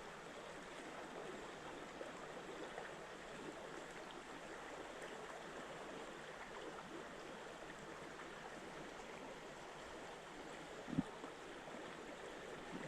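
River water flowing steadily, an even rushing hiss, with a single short thump near the end.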